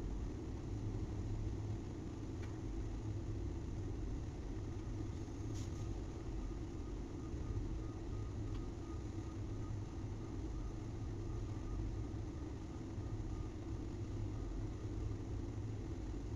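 Steady low rumble of heavy machinery running, engine-like, with a faint high whine for a few seconds in the middle.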